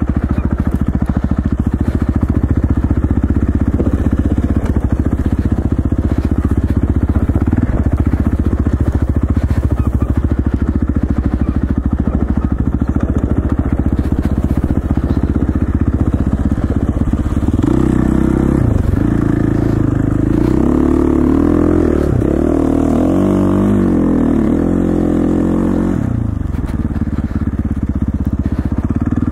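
KTM 450 dirt bike's single-cylinder four-stroke engine running under way. It holds a steady note for the first half, then rises and falls in pitch as the throttle opens and closes, from about two-thirds of the way in.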